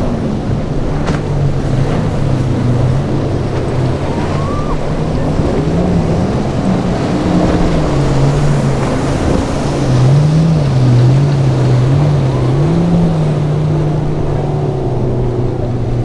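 Outboard engines of a center-console boat running hard through rough inlet waves, their pitch wavering up and down as the boat rides over the swells, mixed with the rush of surf and wind rumble on the microphone. The engines get louder about ten seconds in.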